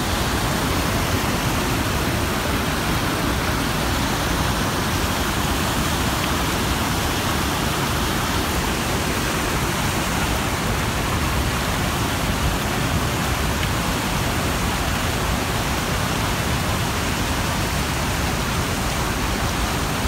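Large waterfall and river rapids, white water pouring over rocks: a loud, steady rush with no let-up.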